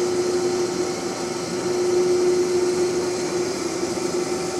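Steady mechanical hum of background shop noise: one constant droning tone over an even hiss, unchanging throughout.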